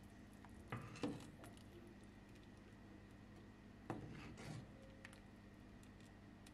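Metal ladle stirring thick soup in a pot, knocking and scraping against the pot's side in short clinks about a second in and again about four seconds in, over a faint steady hum.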